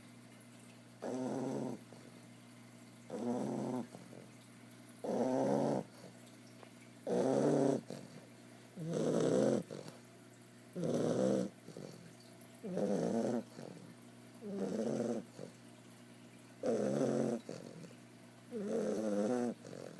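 Bulldog puppy snoring loud in its sleep: ten snores, one about every two seconds, each lasting under a second.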